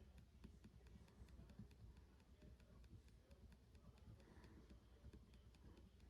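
Faint, irregular light clicks and ticks, several a second, over a low steady hum.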